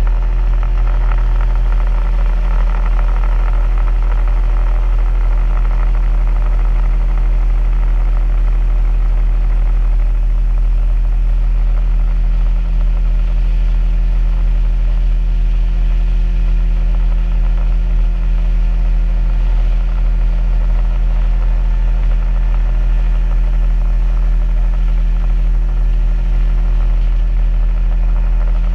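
Boat's outboard motor running at a steady cruising speed, a constant low drone that holds one pitch throughout.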